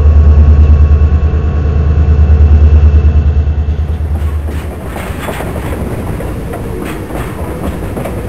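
Diesel freight train passing: the locomotives' deep, pulsing engine drone is loud at first and drops away a little under five seconds in. The autorack cars follow, their wheels clattering over the rail joints.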